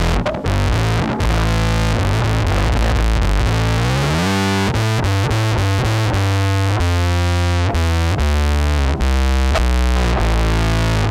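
Electric string instrument played through the Petey Pedals Gato Satanico fuzz pedal: heavily distorted, synth-like fuzz notes with a strong low end. About four seconds in, an upward slide leads into choppy held notes that cut off abruptly.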